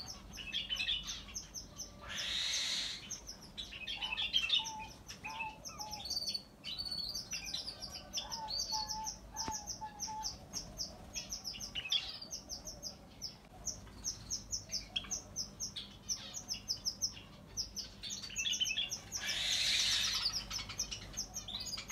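A chorus of many small caged birds chirping: rapid, high-pitched repeated chirps that never stop, with some lower short notes in between. Two brief noisy bursts stand out, about two seconds in and near the end.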